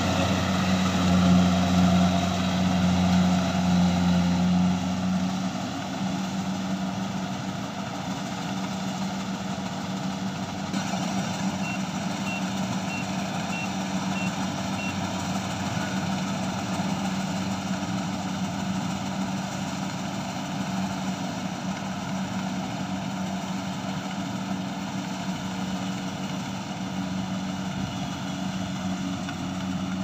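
Kubota DC70 combine harvester running as it cuts rice, a steady engine and machinery drone with a low hum that drops a little about five seconds in as the machine moves away. About twelve seconds in, six short high beeps sound in an even row.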